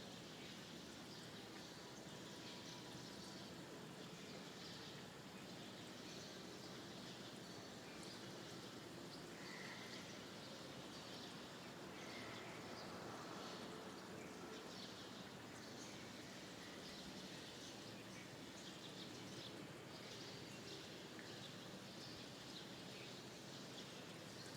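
Small birds chirping faintly in many short, scattered chirps over a steady background hiss.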